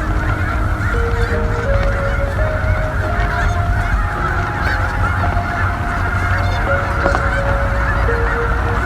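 A huge flock of geese calling all at once: a dense, unbroken chorus of overlapping honks.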